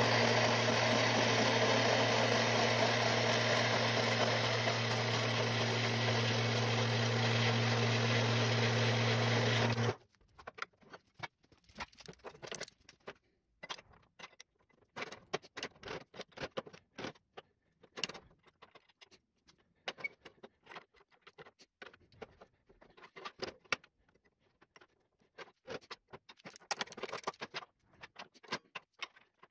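Horizontal metal-cutting band saw running steadily as its blade cuts through a metal tube, then cutting off suddenly about ten seconds in. Scattered light metal clicks and rattles follow as the saw's vise is loosened and the tube is shifted.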